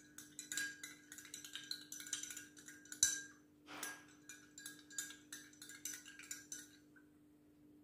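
Metal spoon stirring a glass mug of lemon water with soaked basil seeds, clinking and ringing against the glass many times, with one louder clink about three seconds in. The stirring stops about seven seconds in.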